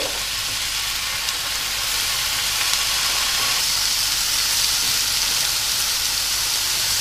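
Strips of smoked pork belly sizzling in a dry nonstick frying pan, with no oil added: a steady frying hiss that grows a little louder about two seconds in.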